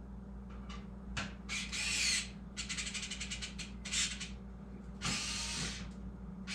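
Screwdriver turning screws into a computer motherboard: short scraping bursts of metal on metal and a quick run of rapid clicks about two and a half seconds in, over a steady low hum.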